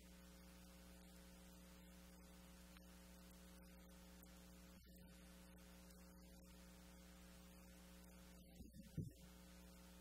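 Near silence with a steady low electrical hum. A brief soft knock sounds about nine seconds in.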